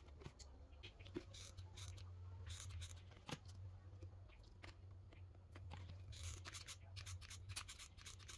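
Faint handling noises of tools and a plastic bottle being worked on a table: scattered small clicks, scrapes and brief crinkles, over a low steady hum.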